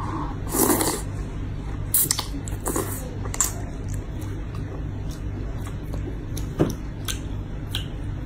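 Person slurping up a mouthful of thick Xinjiang-style spicy rice noodles about half a second in, then chewing them, with scattered sharp mouth clicks over a steady low hum.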